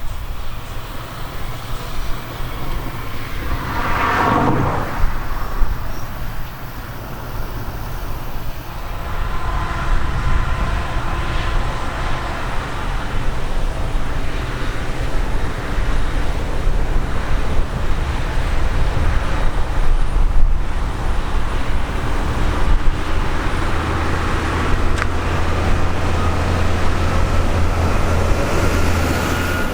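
Heavy farm harvest machinery running steadily: a deep engine rumble with a whine over it, swelling briefly about four seconds in.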